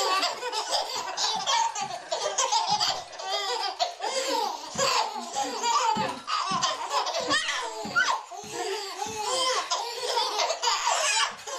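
Twin babies laughing hard and without a break, belly laughs and squeals, as they bounce in doorway jumpers. Soft irregular thumps come from their feet striking the wooden floor.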